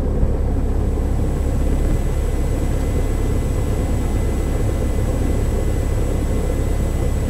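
Cessna 172 Skyhawk's single piston engine and propeller idling on the ground, a steady low drone heard inside the cockpit.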